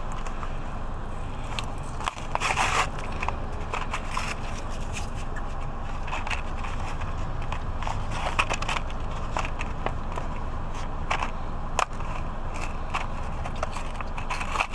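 Plastic blister packaging of a toy train crinkling and crackling in irregular bursts as it is worked open by hand, over a steady low rumble.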